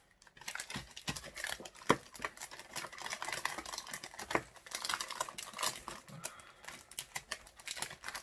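Small plastic bags of diamond-painting drills being handled and packed away: rustling and crinkling plastic with many light clicks and taps, and a couple of sharper clicks about two and four seconds in.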